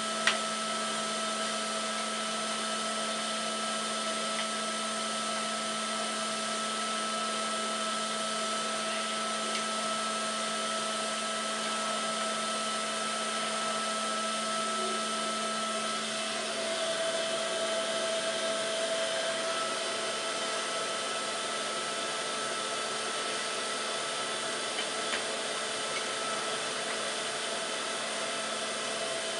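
1950s Vactric W404 cylinder vacuum cleaner running steadily, a motor whine with a low hum under it, as its floor nozzle is worked over carpet. A short click comes right at the start, and a little past halfway the whine shifts slightly in pitch and the low hum fades.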